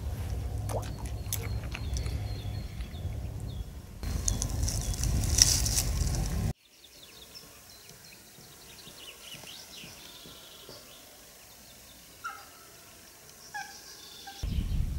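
Wind buffeting the microphone with small clicks and rustles, louder for a couple of seconds about four seconds in. It then drops suddenly to a quiet stretch of birds chirping, with two short calls near the end.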